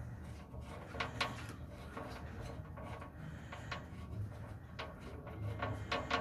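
Light clicks and taps at irregular intervals over a low steady hum, as a hand works the drain plug on a semi truck's oil pan.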